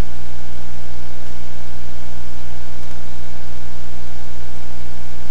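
Loud, steady electrical buzz: a low hum with a stack of overtones and a hiss over it, unchanging throughout.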